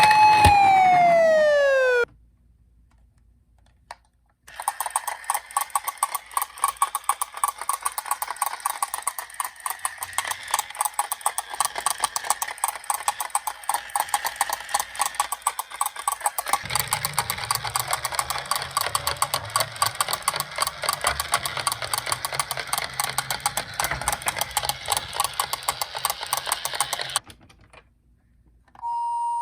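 A siren's wail slides down in pitch and stops about two seconds in. After a short pause comes a fast, even clicking rattle of plastic toy ambulance minicars rolling in a box, with a deeper rumble joining about halfway, and it stops shortly before the end.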